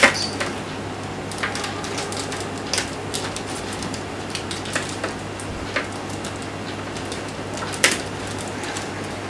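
Hands opening a helmet's instruction booklet and its packaging, in irregular sharp crackles and clicks; the loudest comes at the start and another about eight seconds in, over a steady low hum.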